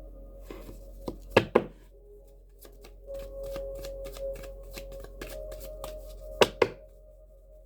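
Tarot cards being shuffled and handled, a run of short crisp flicks, with two pairs of sharp knocks, about a second and a half in and again near the end. Soft ambient background music with steady held tones runs underneath.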